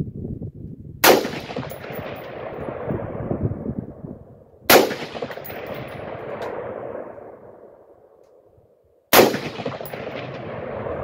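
Three single rifle shots from a Radical Firearms AR-15 firing 55-grain 5.56 mm rounds, about four seconds apart. Each sharp crack is followed by a long echo that dies away over several seconds.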